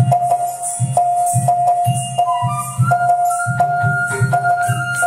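Recorded Carnatic dance accompaniment for Bharatanatyam. Drum strokes come about two a second under a held melody note that steps up to a higher note about three seconds in, with high jingles on the beat.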